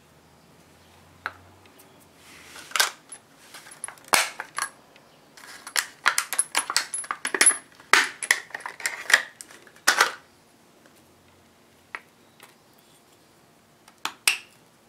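Metal bolts clinking and rattling in the hands as they are handled and taken out of their plastic blister packaging: a dense run of sharp clicks and clinks for several seconds, then a couple of single clicks near the end.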